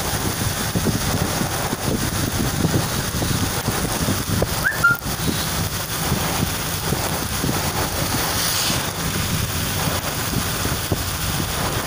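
Steady rumble and hiss of a vehicle driving on a rain-soaked road in a downpour, with wind noise. A brief high rising chirp comes about five seconds in, and a short hiss near nine seconds.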